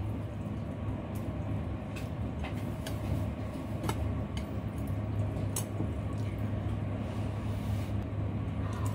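Chopsticks stirring and tossing wet rice vermicelli in a bowl: scattered light clicks against the bowl and soft squishy noodle sounds, over a steady low hum.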